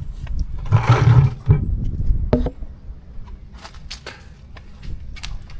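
A loud, rough rush lasting about half a second, about a second in, then a handful of short, sharp clicks and knocks of hand tools on metal while the bolts holding the ATV's oil filter cover are worked out.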